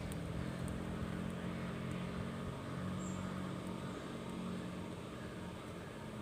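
A motor engine running steadily at a constant pitch.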